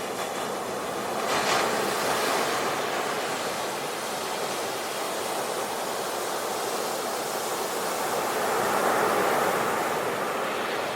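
Sea waves surging and washing on the shore: a steady hiss of surf that swells louder about a second and a half in and again near the end.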